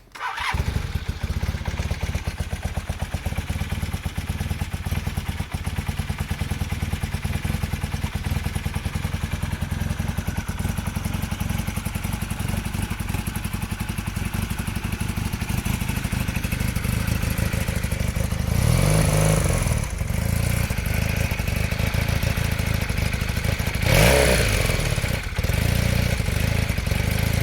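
1980 Honda CM400E parallel-twin motorcycle engine running at a choppy, uneven idle, coming in suddenly right at the start and briefly revved twice, about two-thirds of the way through and again near the end. The owner, who had it running smoothly earlier, isn't sure why it's choppy; its carburettor still needs cleaning.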